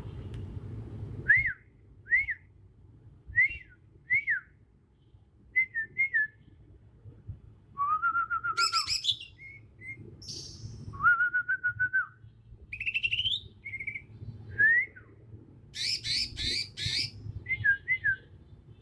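Young male green leafbird (cucak ijo) singing its natural, unlearned song: short separate arched whistles, then longer buzzy rasping phrases and a few harsh high notes, with irregular pauses between them. The song has no mimicked phrases yet.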